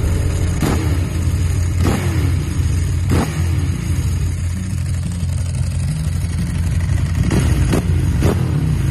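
Ducati motorcycle engine running with a steady low rumble, broken by about six short sharp pops or clicks, a few near the start and a cluster near the end.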